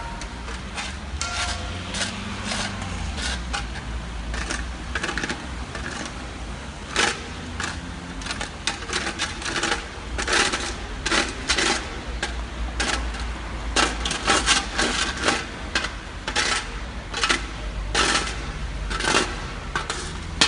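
Burning car crackling and popping: many sharp, irregular pops and cracks, growing thicker after the first few seconds, over a low steady rumble.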